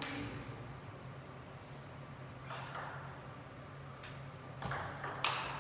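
Table tennis ball being struck by paddles and bouncing on the table during a rally: a few sharp, separate clicks, more closely spaced near the end.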